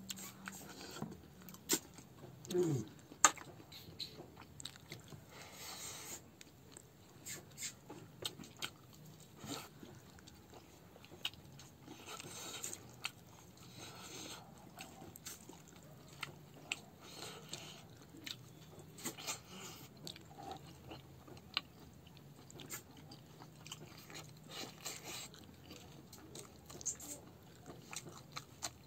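A man eating a rice meal by hand close to the microphone: chewing and biting, with irregular sharp clicks and a few crunches.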